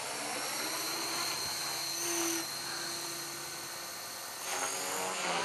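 Radio-controlled model helicopter flying, its motor and rotor giving a steady high-pitched whine that swells about two seconds in and again near the end.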